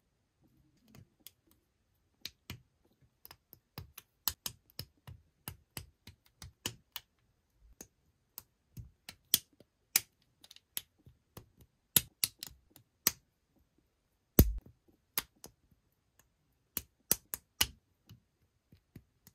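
LEGO bricks being pressed and snapped together by hand: a run of sharp, irregular plastic clicks, with one heavier knock about three-quarters of the way through.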